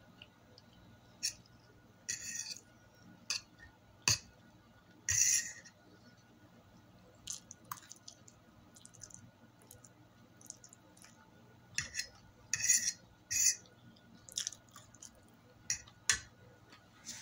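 Close-miked eating sounds: spaghetti slurped and chewed in short bursts, with a few sharp clicks of cutlery.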